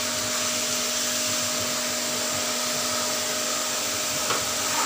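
Steady blower-like whooshing hum at an even level, with a faint steady tone running under it, the continuous noise of a kitchen fan or burner. A light clink a little after four seconds in.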